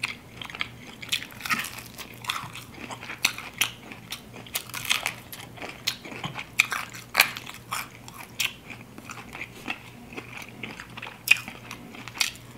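Crispy fried chicken wings being bitten and chewed: an irregular run of sharp crunches, several a second at times.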